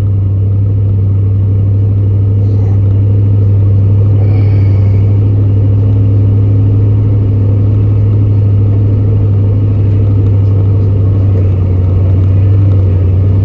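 Old pickup truck's engine running steadily under way, a loud low drone heard from inside the cab.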